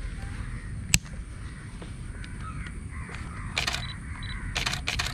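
DSLR camera shutter firing: a single click about a second in, then short bursts of rapid shutter clicks near the end, with two short high beeps between them.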